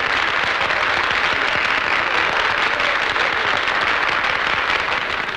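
Crowd applauding steadily, many hands clapping at once with no music playing.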